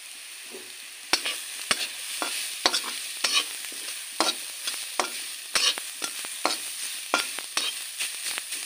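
Shredded cabbage and carrot sizzling in oil in a kadhai, with a metal spatula scraping and knocking against the pan as it stirs them. The knocks start about a second in and come one or two a second.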